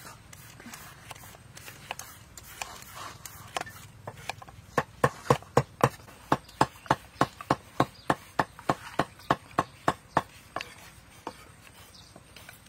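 Kitchen knife slicing small round green eggplants on a wooden chopping board: faint cuts at first, then a regular run of sharp knocks on the board about three a second from about five seconds in, thinning out near the end.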